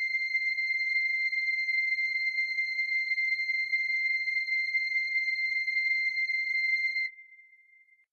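A single steady high electronic tone, held for about seven seconds, then cut off abruptly with a faint tail fading out: a held synthesizer note closing the song.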